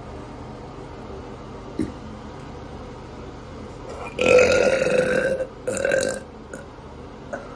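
A woman's long, loud burp about four seconds in, followed at once by a shorter second burp: the release of a burp she felt stuck in her bloated stomach.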